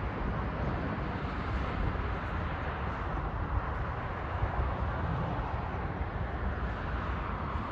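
Steady hum of distant highway traffic, an even low rumble with no distinct events.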